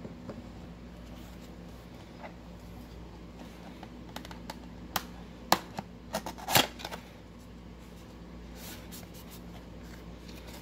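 Cardboard toy box and paper being handled: scattered taps, clicks and short rustles, loudest in a cluster about five to seven seconds in, over a steady low hum.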